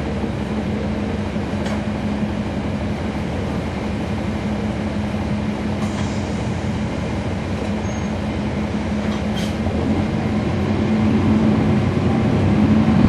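2012 NABI 40-SFW transit bus with a Cummins ISL9 diesel engine, heard from inside while under way. The engine and driveline give a steady low drone that grows louder over the last few seconds.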